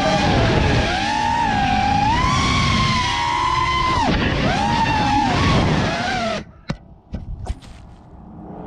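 Racing quadcopter's electric motors and propellers whining, the pitch rising and falling with the throttle. The whine cuts off abruptly about two-thirds of the way through, followed by a few sharp knocks.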